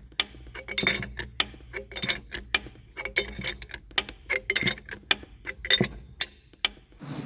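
Irregular metallic clicks and clinks, about two or three a second, from a wrench turning the nut of a screw-type injector puller on a Mercedes Sprinter diesel. They come as the tool is wound to draw a stuck injector up out of the cylinder head.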